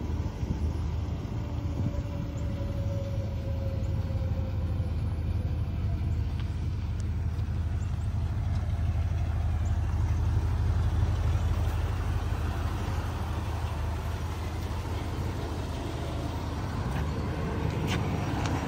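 Big-block V8 of a 2000 Chevrolet Silverado 3500 idling steadily with a low, even exhaust note, a little louder for a few seconds near the middle. A few light clicks near the end.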